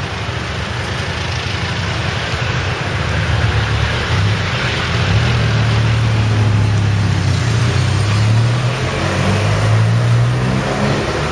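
Road traffic on a busy street, with a motor vehicle's engine running close by: its low hum grows louder about four seconds in and stays strong until near the end.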